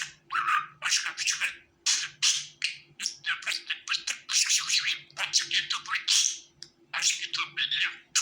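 Budgerigars chattering and warbling: a fast run of short chirps and squawks with a brief pause about six and a half seconds in, over a faint steady low hum.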